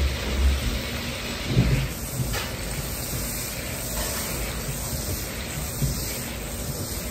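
Butter sizzling and foaming in a hot wok as it is swirled around, a steady hiss, with a couple of low thumps in the first two seconds.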